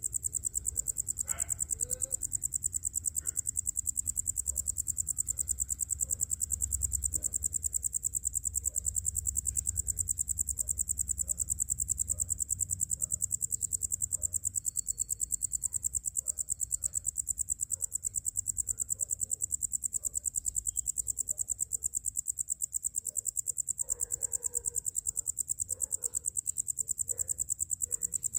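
Crickets trilling: a steady, high-pitched, rapidly pulsing trill that does not let up. A low rumble lies underneath in the first half.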